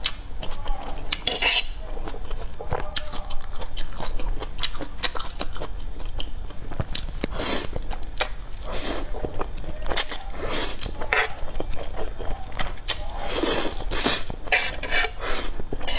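Close-miked eating: a cherry tomato bitten and chewed at the start, then curly instant noodles slurped up in several hissy pulls in the second half. Wet mouth clicks and a metal fork tapping on the tray run throughout.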